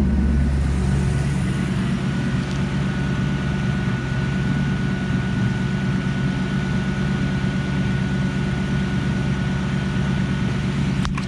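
Twin-turbo Saleen Mustang V8 running steadily at an even, unchanging speed, a low drone with no revving. A faint steady high whine joins about two seconds in.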